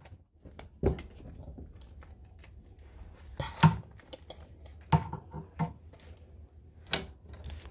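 Plastic dolls and a toy house being handled, giving a scatter of light knocks, taps and rustles, with a few sharper knocks spread through.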